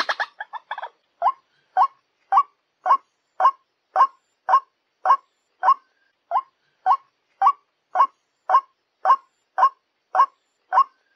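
White-breasted waterhen (ruak-ruak) lure call: a short, fast chattering run in the first second, then a single call note repeated steadily about twice a second.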